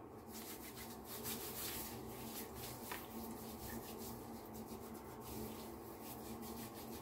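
Fingers rubbing shaving lather into two days' beard stubble: faint, quick, wet rubbing strokes, with a small click about three seconds in.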